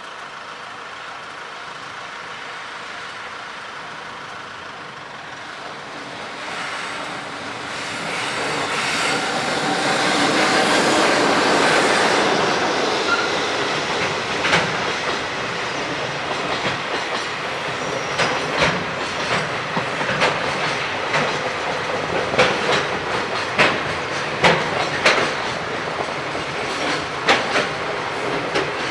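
EF66 electric freight locomotive hauling a freight train past. The sound builds as the locomotive approaches and is loudest about ten seconds in, then gives way to the freight wagons' wheels clicking over rail joints, in sharp irregular clicks.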